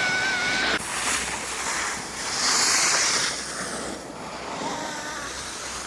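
Wind rushing over the microphone while sliding down a snow slope, with the steady hiss of snow under the skis or board. A louder scraping swell comes about two and a half seconds in, and a thin high whine cuts off suddenly just under a second in.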